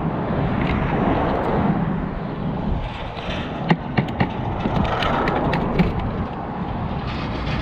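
Scrap metal pulled up on a fishing magnet being handled: a few short sharp metal clicks and knocks, about four seconds in and again near six, over a steady rumble of traffic.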